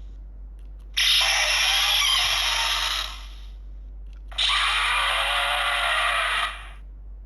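Electronic sound effects from an Ultraman Trigger transformation-device toy, played through its small built-in speaker: two effect bursts of about two seconds each, the first about a second in and the second a little past the middle.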